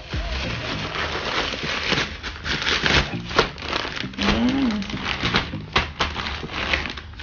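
Plastic packaging crinkling and rustling by hand as a plastic mailer is torn open and a clear plastic bag is unwrapped, with sharp crackles and snaps throughout.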